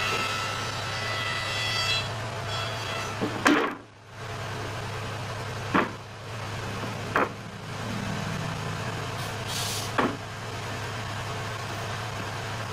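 A steady low machine hum throughout. A power-tool whine stops about two seconds in, followed by several sharp wooden knocks as the solid wood tabletop is set down and fitted onto its leg frame.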